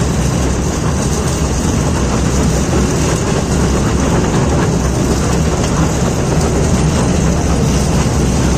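Steady low rumble and running noise of a zoo toy train in motion, heard from a passenger car.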